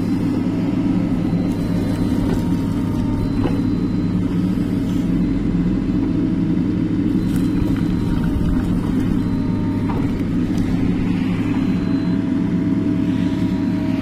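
Diesel engine of a Mahindra EarthMaster SX backhoe loader running steadily as a loud low rumble while the backhoe arm digs a trench, with a few faint knocks.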